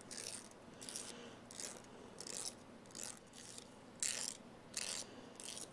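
An emery board rasping across a white-faced capuchin monkey's fingernails: about ten short, scratchy filing strokes, a couple a second.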